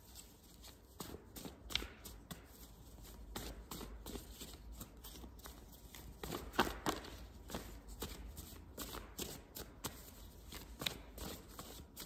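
A tarot deck being shuffled and handled: a faint, irregular run of soft card rustles and clicks, with a few sharper snaps.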